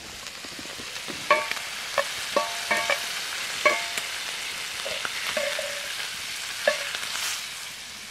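Food sizzling in a cast iron pan over a fire, the hiss building steadily. A metal utensil clinks against the pan about seven times as the food is stirred and turned, each clink ringing briefly, most of them in the first four seconds.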